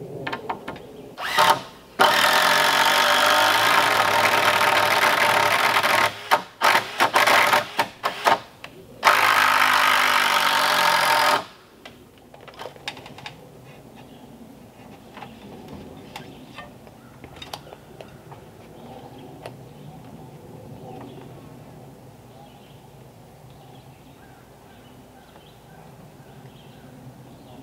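Handheld power tool working the log rafters. It runs in a long burst, then in a few short pulses, then in another long burst, and stops suddenly about eleven seconds in. After that there are only a few light knocks.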